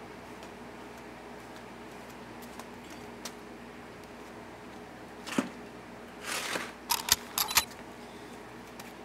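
Rubber sandals scuffing and clicking on a carpeted mat as bare feet step out of flip-flops and into slides: one knock, a short scuff, then a few quick clicks about two-thirds of the way through. A steady low hum runs underneath.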